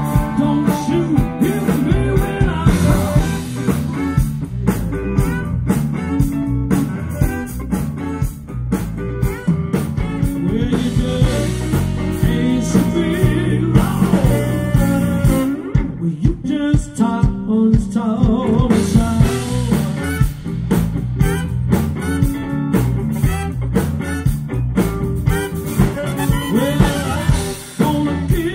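Live blues band playing, with electric guitar, Hammond organ, bass guitar and drum kit.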